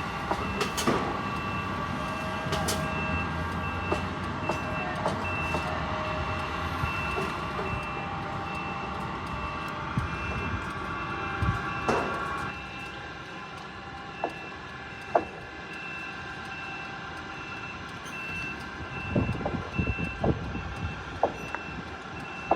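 A vehicle's backup alarm beeps steadily in an even repeating rhythm over a running heavy engine. The engine noise drops about halfway through. A few sharp knocks follow, and a cluster of clanks comes near the end.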